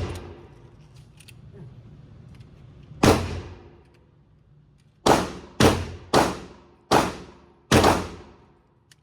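Handgun shots echoing in an indoor firing range: a single shot about three seconds in, then five more in quick succession over about three seconds, each with a reverberating tail.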